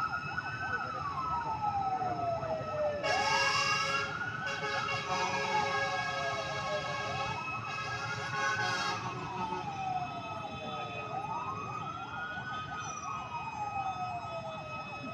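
Emergency vehicle siren on a slow wail, rising over about a second and a half and falling over about two and a half, repeating about every four seconds. From about 3 to 9 seconds a steady horn-like tone with many overtones sounds over it, breaking briefly about four and a half seconds in, with low street traffic underneath.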